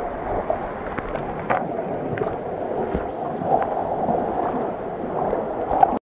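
Water rushing and gurgling in a steady wash, with a few faint ticks.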